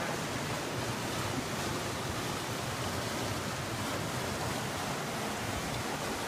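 Steady rush of a mountain brook's water tumbling over rocks into a pool.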